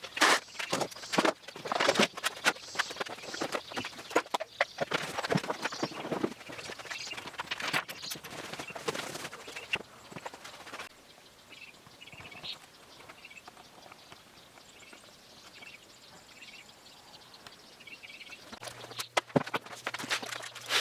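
Workshop handling noise: rapid knocks and clatter of wood and hardware for about ten seconds, then a quieter stretch with faint repeated chirps, and a low steady hum near the end as the knocking resumes.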